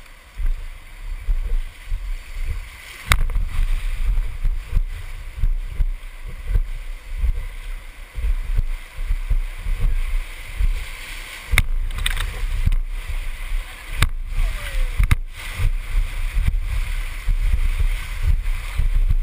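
McKenzie River whitewater rushing and gurgling around a raft, with low buffeting on the microphone. A few sharp knocks come through, one about three seconds in and several in the second half.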